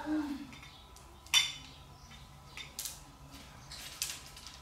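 Bamboo kite spars clicking and tapping together as they are handled and fitted at the frame's centre joint. There are a few sharp clicks, the loudest about a second and a half in.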